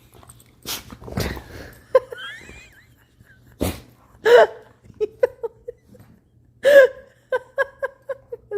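Labrador and puppy play-fighting, with short breathy huffs, a high wavering whine about two seconds in, and short grunting vocal sounds. Near the end comes a quick run of short pitched sounds, about four a second.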